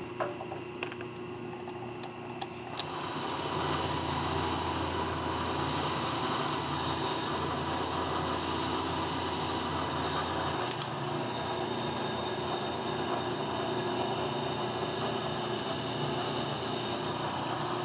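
Milling machine running, its end mill cutting flutes into a brass workpiece, a steady machine sound with a constant hum that sets in about three seconds in after a few light handling clicks. One sharp click comes near the middle.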